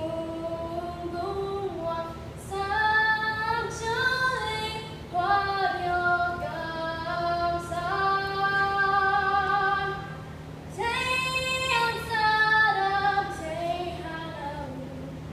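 A girl singing a national anthem solo and unaccompanied into a handheld microphone, in long held notes, with a short breath between phrases about ten seconds in.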